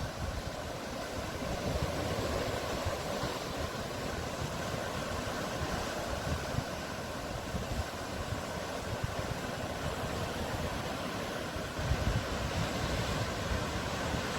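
Steady noise of sea surf and wind, with a low gust of wind on the microphone near the end.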